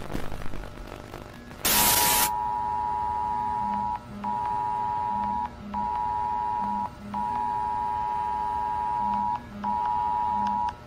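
A short, loud burst of static about two seconds in, then a two-tone emergency-broadcast alert signal, two steady tones together, sounding in five long stretches separated by brief breaks.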